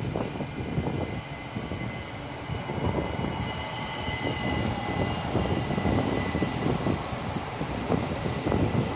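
ÖBB electric multiple unit running along a station platform: a steady rumble of wheels on rails with a thin, steady high whine over it.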